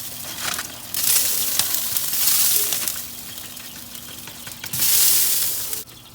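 Hot turkey fat and juices sizzling in a roasting pan fresh from a 425°F oven, swelling and easing in surges, with small crinkles of aluminium foil as it is peeled off the wings. The sizzle drops away suddenly near the end.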